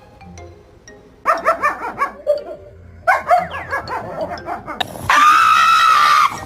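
A dog yapping in two quick runs, starting about a second in and again around three seconds in, then a long, loud, held cry near the end.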